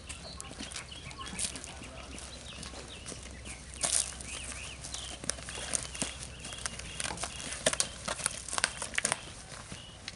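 Footsteps of several people in hard-soled shoes stepping and scuffing on a concrete walkway, a string of irregular clicks and knocks, with birds chirping through the middle.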